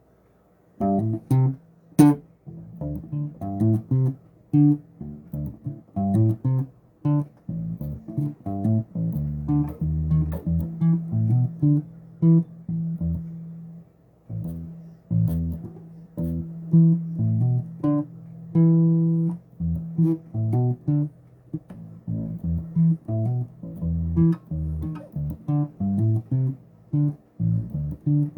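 Solo bass guitar played as a run of quick plucked notes, using octave shapes. There is no backing track.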